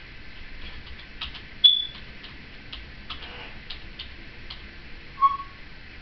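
Timneh African grey parrot giving a short, high whistle about one and a half seconds in and a shorter, lower whistle near the end, with faint scattered clicks between.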